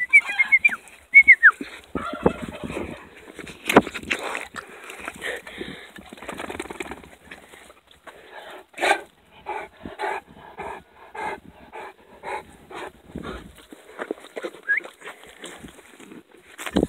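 Two dogs at play: a few short high whimpering squeals in the first second and a half, then scuffling, rustling noises as they tussle.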